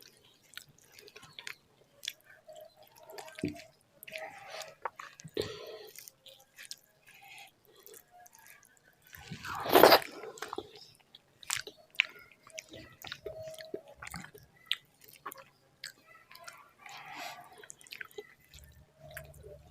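Close-miked chewing and wet mouth sounds of a person eating rice mixed with bharta, with many small clicks and smacks. About ten seconds in there is one much louder, longer burst of noise.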